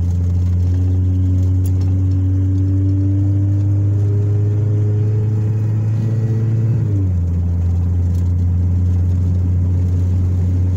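Car engine and road noise heard from inside the cabin while driving. A steady low engine hum is joined by an engine note that climbs slowly for about seven seconds, then drops suddenly.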